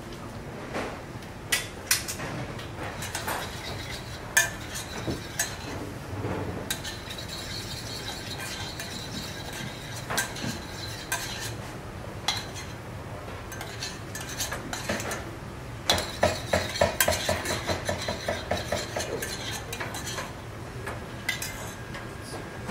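Metal ladle and spoon clinking and scraping against small stainless-steel saucepans as sauce is spooned in and stirred, over a steady kitchen background. About two-thirds of the way through comes a run of quick, rhythmic clinks of stirring in a pan.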